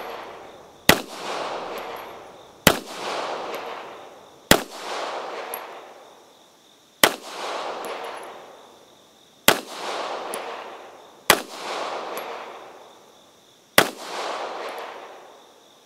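Beretta M1951 9mm pistol firing seven slow single shots, about two seconds apart. Each shot is followed by a long echo that dies away over a second or two.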